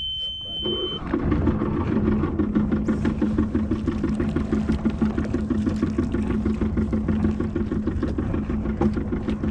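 A high steady beep, then the J105 sailboat's inboard diesel engine starts about a second in and runs at idle with a steady rapid throb.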